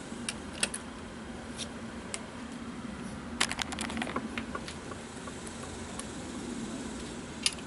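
Light clicks and taps of a hex-head sheet metal screw and its driver bit against thin sheet metal as it is being set and started. There are a few single clicks, then a quick run of clicks about three and a half seconds in, over a faint steady hum.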